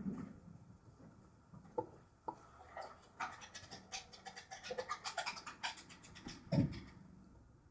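Small clicks and scratching from handling small parts and tools during electronics soldering work: a few separate clicks, then a dense run of rapid clicks and scratches, and a single low thump near the end.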